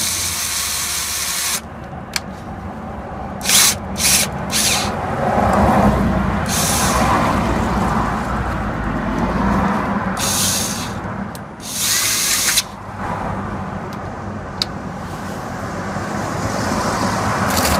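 Bosch cordless drill driver running with a socket on a car wheel bolt, driving the bolt tight in a hard-joint torque test. Several short loud bursts of noise break in, the first three close together a few seconds in, then two more around the middle.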